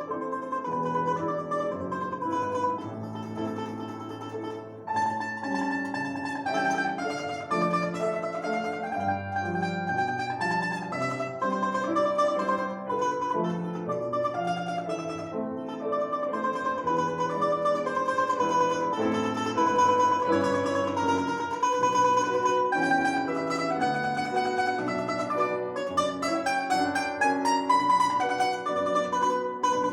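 A plucked string instrument playing the melody of a Russian folk song arrangement, with lower accompanying notes beneath it.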